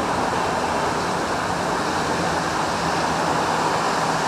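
Heavy rain pouring down in a downpour, a steady rushing hiss.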